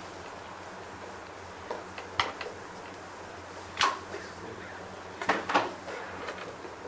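Marker writing on a whiteboard: a few short scratchy strokes, about two seconds in, near four seconds and a quick pair around five and a half seconds, over a steady low room hum.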